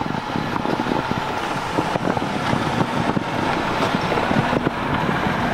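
Jeep Wrangler crawling backward out of a snowy washout onto plastic traction boards, engine running, with many small crunches and clicks from the tyres on snow and boards.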